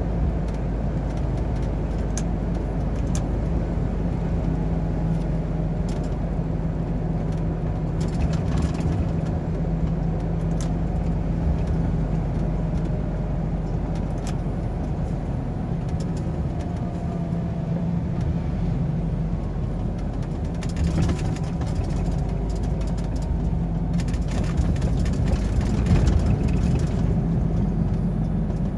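Lorry driving at steady speed, heard from inside the cab: the diesel engine's even drone with tyre and road noise, and scattered clicks and rattles, more of them near the end.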